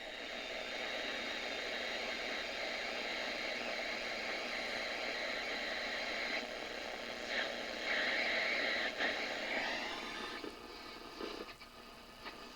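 Static hiss from the speakers of a 1967 Audition portable AM/FM radio-phonograph tuned between stations, with faint steady whines of interference in it. About ten seconds in the hiss drops and turns crackly as a station begins to come in.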